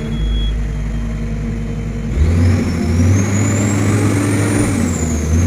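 Komatsu PW180 wheeled excavator's diesel engine running, picking up revs about two seconds in with a high whine climbing with it. A thin high steady tone stops about half a second in, and no warning buzzer follows the gear change: the brake-oil-pressure warning fault is cured.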